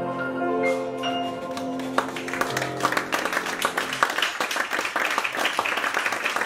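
A vocal quartet and grand piano hold the song's final chord, which dies away about four seconds in. Audience applause breaks out about two seconds in and carries on steadily.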